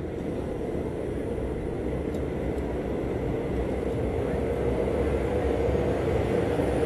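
Massed drone of IAME X30 two-stroke kart engines running on the track, one steady blended note that grows gradually louder.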